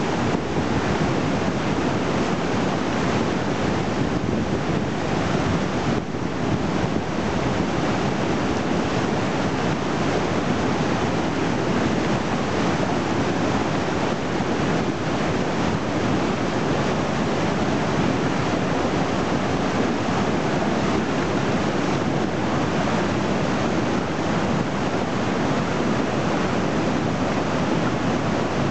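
Flooded river water rushing through rapids and whitewater: a steady, loud, unbroken rush of water.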